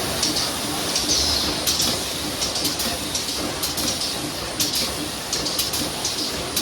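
Serpentine tube-and-fin assembly machine running: a steady mechanical noise with a low hum, broken by repeated sharp clicks and short hisses about once or twice a second.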